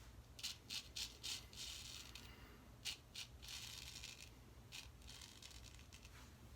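Weck Sextoblade shavette blade scraping through a day's stubble on a lathered face: a run of about eight short rasping strokes, two of them longer.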